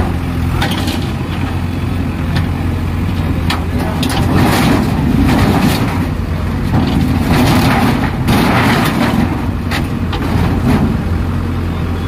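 JCB backhoe loader's diesel engine running steadily while its bucket crunches through corrugated metal sheets and timber, with repeated clattering crashes of sheet metal throughout.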